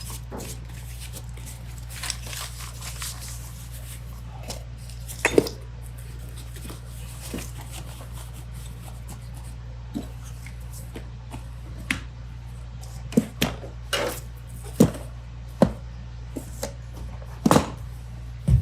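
Hand tools being sorted and put away on a workbench: scattered clinks and knocks of tools being picked up and set down, with a cluster of louder knocks near the end, over a steady low hum.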